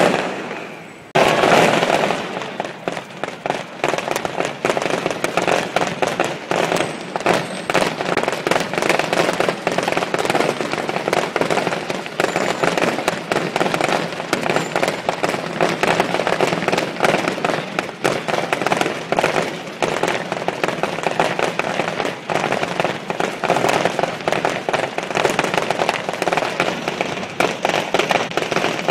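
Aerial fireworks shells bursting in quick succession, a dense, continuous crackle of many bangs with no break. It starts after a brief lull about a second in.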